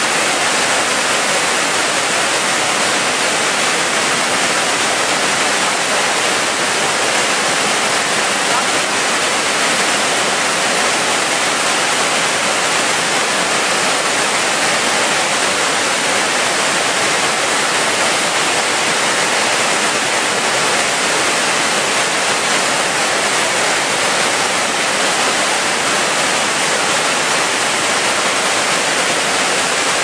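Hogenakkal Falls: a steady, loud rush of white water pouring over rock ledges close by, with no break or change.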